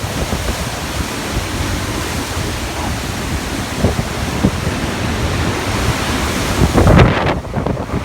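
Typhoon-force wind blowing in heavy gusts and buffeting the microphone, with a dense rushing roar; the strongest blast comes about seven seconds in.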